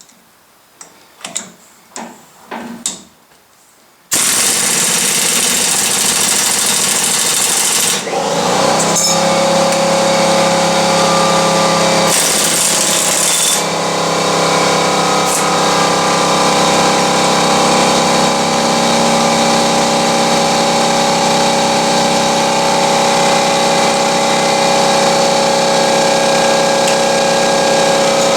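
A few light metal clinks, then a loud power tool starts suddenly about four seconds in and runs steadily with hardly a break, likely at work on a tight wheel stud.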